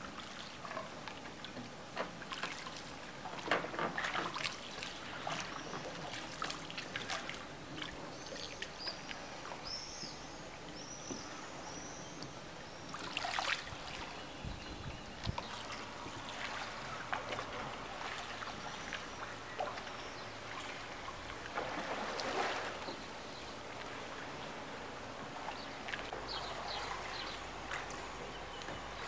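Water sloshing and lapping around a rowed boat, with louder splashes of a wooden oar dipping into the water every few seconds.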